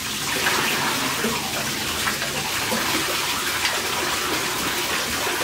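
Steady rush of running water in a flooded basement, where the sump pump has stopped working and water keeps coming in.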